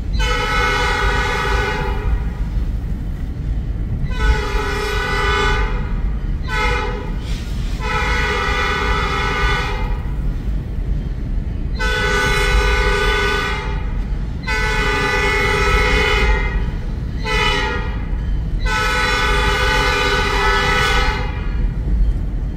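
Locomotive air horn on Escanaba & Lake Superior 501 sounding the grade-crossing signal twice: long, long, short, long, then the same pattern again for the next crossing. A steady low rumble runs underneath.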